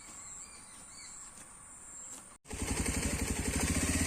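A few short rising bird chirps over a steady high-pitched whine. After an abrupt cut about two and a half seconds in, a vehicle engine starts running loudly, with a fast, even pulse.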